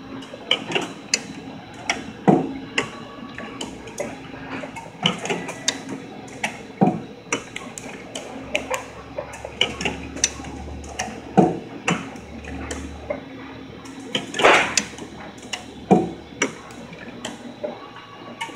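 HTC20 CNC spring coiler with a looping station running, forming 0.025-inch stainless steel wire into side-loop extension springs: a steady hum under rapid mechanical clicking and clatter, with louder knocks every few seconds.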